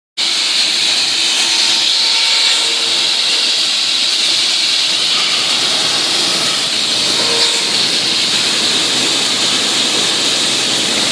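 Concrete saw cutting through concrete: a loud, steady, high hiss of the blade in the cut.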